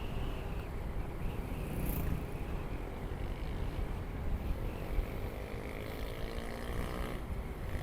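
Motorcycle riding with steady low wind rumble on the action camera's microphone. From about five seconds in the engine note rises steadily as it accelerates, then drops away shortly before the end.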